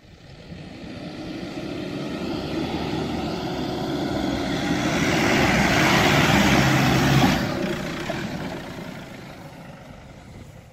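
Nissan Patrol four-wheel drive climbing a soft sand dune track, its engine working under load and its tyres churning the sand. It grows steadily louder as it approaches, passes close about seven seconds in with a sudden drop in level, then fades as it drives away.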